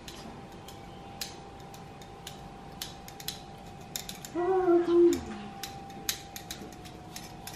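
Handheld metal sifter being squeezed and shaken, its mechanism clicking irregularly as powdered sugar is dusted over pancakes, about one or two sharp clicks a second. A short vocal sound comes in about halfway through.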